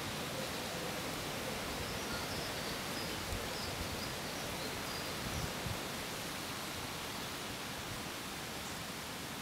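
Steady, even hiss of outdoor background noise at a pond's edge, with a few soft low bumps between about three and six seconds in.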